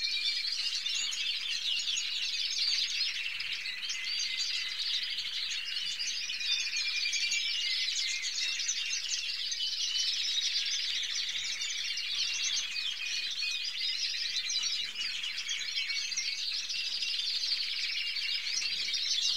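A roomful of canaries chirping and singing together, a dense, unbroken chorus of high trills and chirps with short held whistled notes mixed in.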